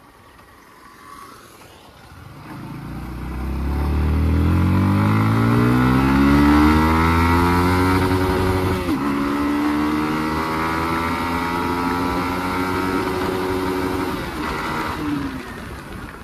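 Yamaha MT-15's 155 cc single-cylinder engine accelerating hard under full throttle, its pitch rising steadily. About nine seconds in the pitch drops sharply as the bike shifts up a gear, then holds high and steady before easing off near the end.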